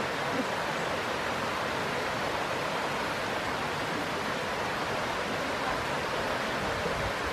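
Shallow, rocky stream rushing steadily over stones: a constant, even water noise with no distinct splashes.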